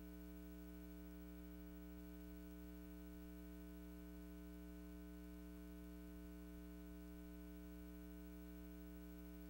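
Faint, steady mains hum with nothing else.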